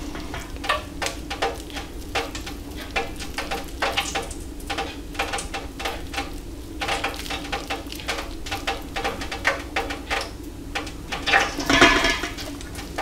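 Wet hands squelching and rustling sliced onions coated in spiced flour batter in a stainless-steel bowl, with many short clicks and crackles as the mix is squeezed into loose balls. A steady low hum runs underneath.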